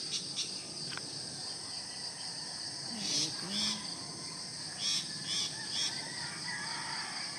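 Steady high-pitched chorus of insects, with a few short calls over it about three seconds in and again around five to six seconds in.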